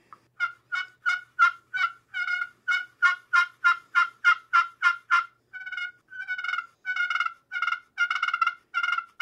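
Slate turkey pot call, its surface freshly roughed up with Scotch-Brite, played with a striker to imitate hen turkey yelps. A quick run of short yelps, about three a second, gives way about halfway through to longer, slightly slower yelps.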